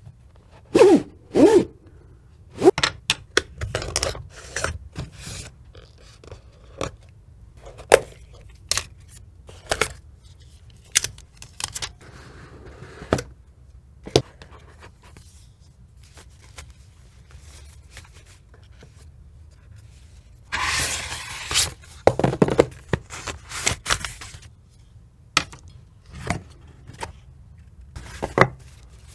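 White cardboard phone-packaging boxes and trays being handled, with repeated taps and knocks as pieces are set down and scraping as box parts slide against each other. A longer scraping rustle comes about two-thirds of the way through.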